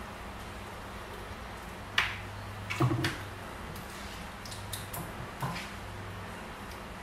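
A plastic serving spoon scooping tomato sauce out of a frying pan and spreading it in a glass baking dish. It knocks against the cookware: one sharp click about two seconds in, a quick cluster just before three seconds, and a few softer taps later, over a steady low hum.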